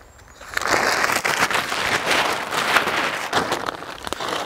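A cheap camouflage tarpaulin being unfolded and shaken out by hand, its sheet crinkling and rustling loudly, starting about half a second in.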